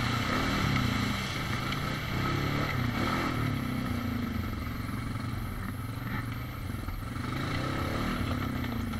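ATV engine running as the quad is ridden along a rough dirt trail, its pitch rising and falling with the throttle every second or two.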